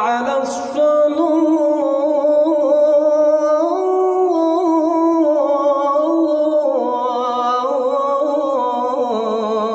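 A man chanting the adhan (Islamic call to prayer) unaccompanied, drawing out one long melismatic phrase with wavering ornaments. The pitch steps up about four seconds in and settles lower again from about seven seconds.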